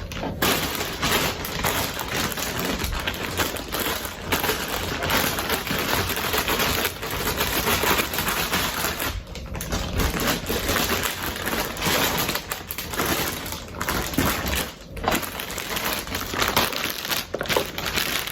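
Plastic bag crinkling and rustling as it is handled and cut open with a knife, a dense continuous crackle broken by a few brief pauses.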